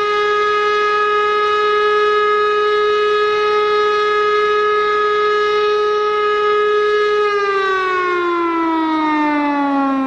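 Chrysler-Bell air raid siren, its Hemi V8-driven rotor sounding one loud steady wail. About seven seconds in, the pitch starts to fall smoothly and keeps dropping as the rotor slows and the siren winds down.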